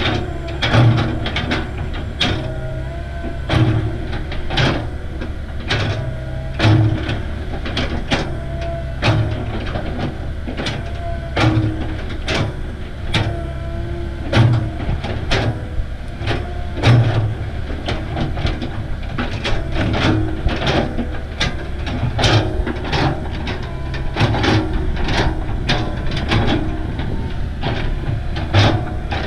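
Komatsu hydraulic excavator's diesel engine running under load, swelling every couple of seconds as the bucket works the soil. Many sharp clacks and knocks of rock and dirt clods scraping and tumbling under the bucket run throughout.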